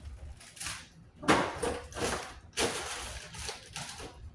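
Kitchen clean-up noises: a series of short rustling and scraping bursts from things being handled and gathered up, the loudest about a second in.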